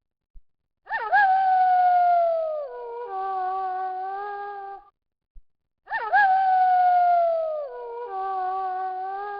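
Wolf howling in a repeating pattern: a long howl that swoops up at its start and slowly slides down in pitch, followed at once by a lower, steadier howl. The pair comes twice, about a second in and again about five seconds later.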